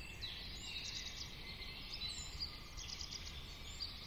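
Woodland ambience: birds chirping and calling, with short high chirps and little pitch glides over a steady background hiss.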